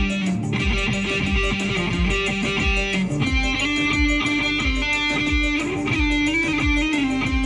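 Electric guitar playing held notes, moving to a higher note about three seconds in and bending and wavering in pitch near the end, over a steady low beat.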